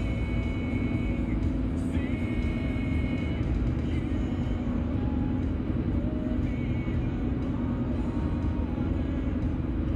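Steady road and engine rumble inside a moving car's cabin at highway speed, with music playing over it; the music's held melody notes come and go.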